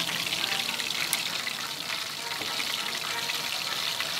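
Breaded chicken pieces frying in hot oil in a pan: a steady, dense sizzle and crackle.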